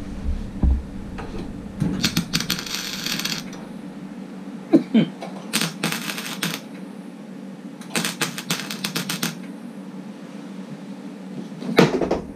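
MIG welder stitch-welding sheet steel on a truck door's lower edge: three crackling bursts of the arc, about two, six and eight seconds in, the first and last over a second long, the middle one short.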